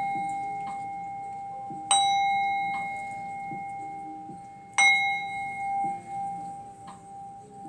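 Metal singing bowl struck twice with a wooden mallet, about three seconds apart. Each strike rings out in a clear tone with a higher overtone that slowly fades. After the second strike the tone carries on with a wavering swell.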